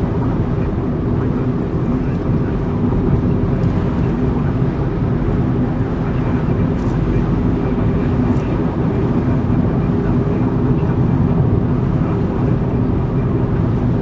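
Steady engine and road noise of a car driving, heard from inside the cabin as a low, even rumble with a faint hum.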